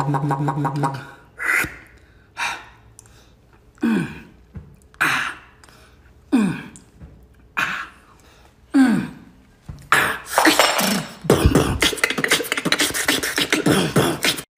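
A man's mouth sounds. A held beatbox hum fades, followed by short, sharp vocal hits about once a second, several dropping in pitch. From about ten seconds in they give way to continuous harsh hissing and sputtering breaths, as hot sauce burns his mouth.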